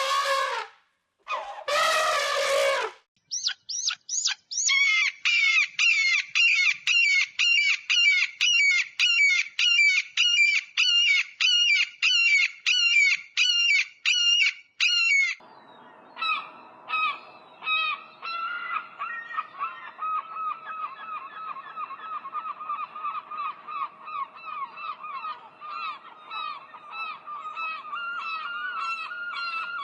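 Geese honking: a rapid, even run of honks, about two or three a second, then a flock of geese calling over one another against a steady background hiss. A short pitched animal call comes just before the honking starts.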